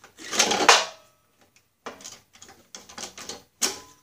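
Pliers and steel parts of a riding mower's shift lever linkage clicking and scraping as a spring is worked loose: a louder scrape near the start, then a run of small clicks and rattles, with a sharper click near the end.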